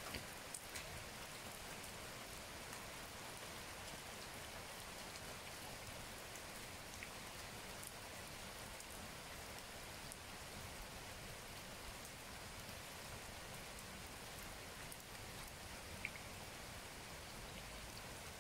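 Steady rain falling on leaves and ground, with a few sharp ticks scattered through it.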